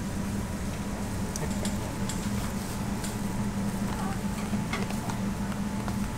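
Steady low hum of kitchen machinery, with scattered light clicks and rustles as a paper takeaway box is handled with plastic-gloved hands.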